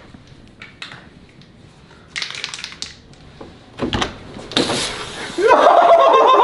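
Aerosol silly string spraying with a loud steady hiss from about four and a half seconds in, soon joined by a man yelling and screaming. Before that only a few faint knocks and a brief hiss.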